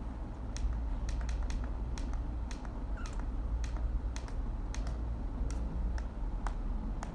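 A series of light, sharp taps at an irregular pace, about two or three a second, over a steady low hum.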